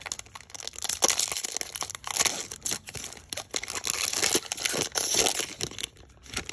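A 2021 Panini Prizm baseball foil pack being torn open and crumpled by hand: dense crinkling and ripping of the foil wrapper, easing off near the end.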